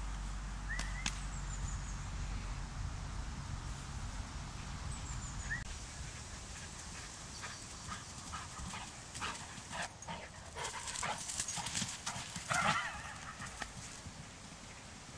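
A dog running over grass, its paws giving a quick run of soft thuds and rustles in the second half that is loudest as it passes close, about twelve seconds in. Before that there is a low rumble and two short high chirps.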